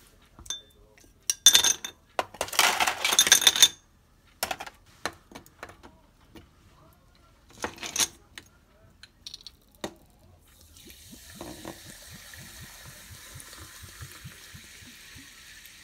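Spoon and berries clinking and tapping against a drinking glass as jam and blueberries go in, in scattered clinks with a dense burst a few seconds in. About eleven seconds in, soda water starts pouring into the glass with a steady fizzing hiss.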